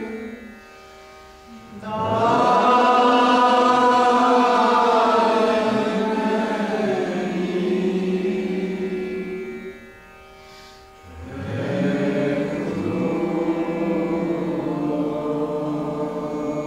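Mantra chanting: long, drawn-out sung phrases, with a faint steady drone underneath. The voices drop away briefly near the start and again about ten seconds in, then swell back.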